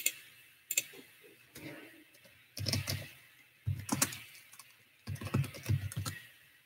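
Typing on a computer keyboard: a couple of single key clicks, then three short bursts of rapid keystrokes.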